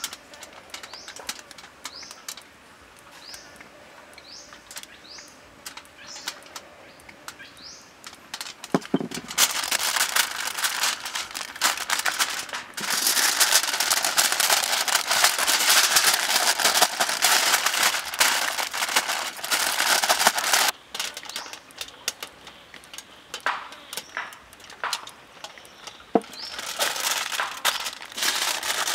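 Aluminium foil crinkling and crackling loudly as it is folded and pressed around a food parcel, in long stretches after a quieter start. A few faint bird chirps sound in the first few seconds.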